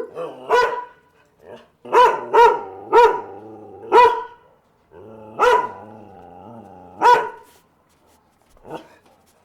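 An angry dog barking in about nine sharp barks, some in quick pairs, with a low growl rumbling between barks in the middle of the stretch.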